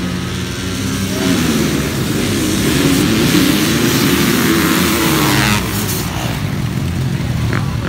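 A pack of motocross dirt bikes racing past, several engines revving hard together. The sound swells about a second in, is loudest for the next few seconds as the bikes go by, and drops away about five and a half seconds in.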